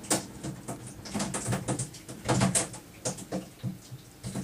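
Irregular taps and knocks on a small fishing boat, with a faint steady hum underneath.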